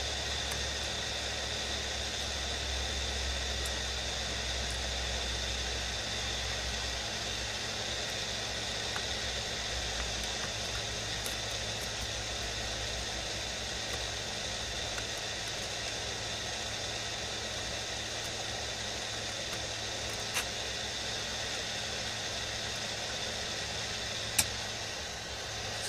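Heat gun blowing hot air steadily, a hissing rush with a faint high whine from its fan, softening the BGA glue around a laptop graphics chip. Two brief sharp clicks sound about 20 and 24 seconds in.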